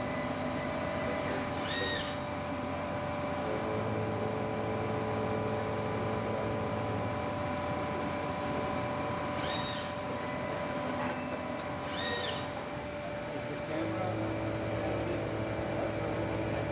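WFL mill-turn machining centre running while milling the teeth of a helical gear: a steady machine hum with motor tones that start and stop as the axes move, and three short high chirps.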